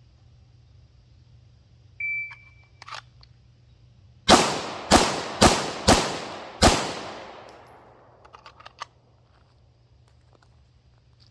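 A shot timer beeps once. About two seconds later, five 9mm pistol shots from a PSA Dagger are fired in quick succession, the last after a slightly longer gap. The reports ring out and die away after the fifth shot.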